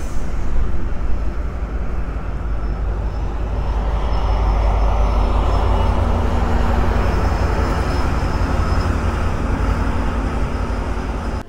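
Metrolink commuter train of bilevel passenger cars rolling past on the rails, a steady deep rumble that grows louder about four seconds in as its diesel locomotive draws near.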